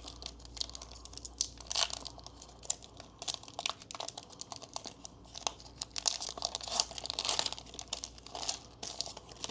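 Foil wrapper of a Pokémon Scarlet & Violet 151 booster pack being torn open and crinkled by hand: a run of irregular crackles and rustles.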